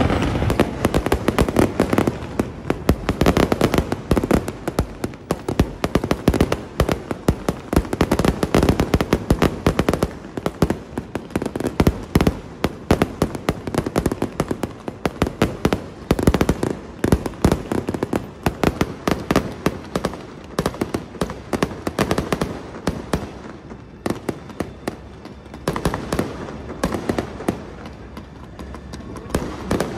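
Fireworks going off in a rapid, unbroken barrage of sharp cracks and bangs. The barrage is loudest through the first ten seconds or so, then goes on a little less loudly.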